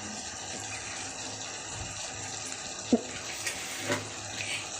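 Chicken pieces sizzling steadily in hot oil in a pan, with a short knock about three seconds in and another a second later.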